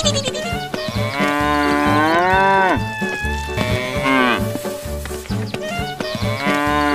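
Cattle mooing: repeated long, drawn-out moos that rise and then fall in pitch.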